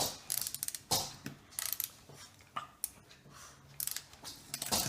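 A small mechanism clicking and rattling in irregular bursts, like a toy's gears or ratchet being worked.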